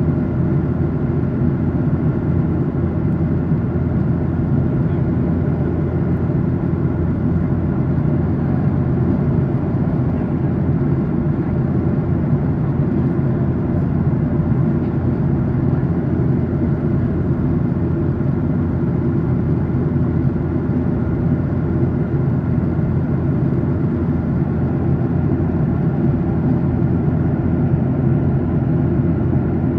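Steady cabin noise of a Boeing 737-800 in cruise, heard from inside the passenger cabin: a constant low drone of the CFM56-7B engines and rushing airflow past the fuselage, unchanging throughout.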